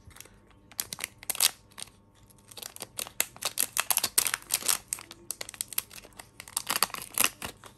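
Metallized anti-static bag crinkling and tearing as it is opened by hand: a few scattered crackles, then a dense run of crinkling from about two and a half seconds in.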